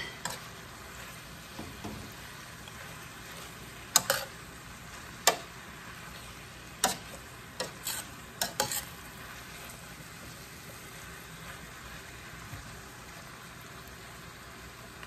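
Vegetables frying with a steady sizzle in a stainless steel skillet while a spatula stirs them. Several sharp knocks of the utensil against the pan come between about four and nine seconds in.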